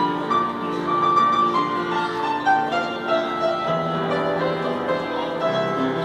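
Instrumental background music led by a piano, a melody of held notes over sustained lower notes.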